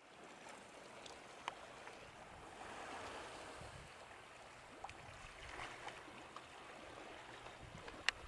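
Calm sea water lapping and trickling among shore rocks: a soft, steady wash, with a few sharp clicks, the loudest near the end.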